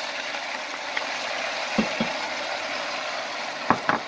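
Browned onions and freshly added tomato juice sizzling in hot oil in a pan, a steady hiss, with two pairs of short knocks, about two seconds in and again near the end.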